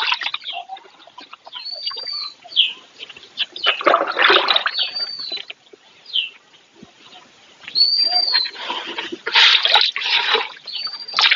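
A bird repeating a short whistled call that rises and falls, about every three seconds, over bursts of water splashing and sloshing in a cattle trough as cows drink at it.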